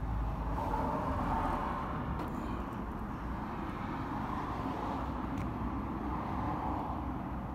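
Steady motor-vehicle noise with a deep rumble, swelling and easing slightly.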